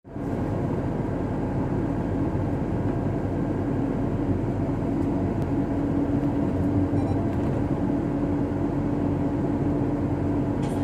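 Steady road and engine noise of a moving vehicle heard from inside it, with a steady low drone running through.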